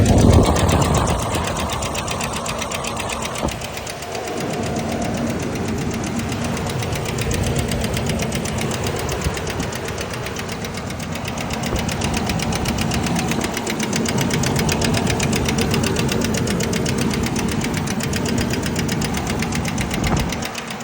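2000 Ford Ranger XLT engine running with a rapid, evenly paced knocking noise, a noise that started two days after the engine was repaired. The engine is louder for the first few seconds, then settles into a steady run.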